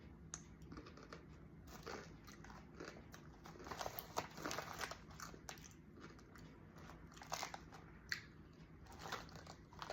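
Someone biting and chewing crisp Qtela Singkong balado cassava chips close to the microphone: a faint, irregular run of crunches, thickest about halfway through.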